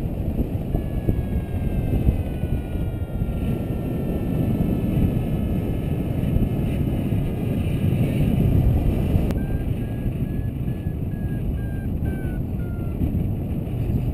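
Wind rushing and buffeting over the camera microphone of a paraglider in flight, a heavy low rumble. After a cut, a faint high beeping comes in at about two beeps a second and dips slightly in pitch.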